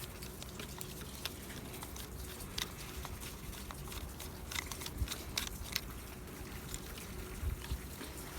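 Scattered small clicks and taps over a low steady hum, as the parts of a small generator's carburetor are handled during disassembly.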